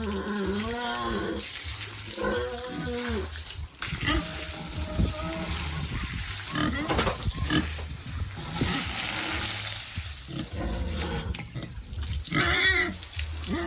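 Pigs grunting and squealing in short wavering calls, in bursts near the start, a few seconds in, and again near the end.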